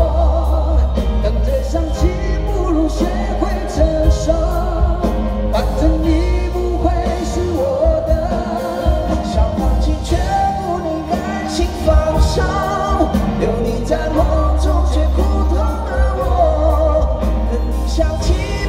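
Live pop-rock band playing a ballad with a male lead singer's voice over it, recorded from the audience through a phone microphone, with heavy, booming bass.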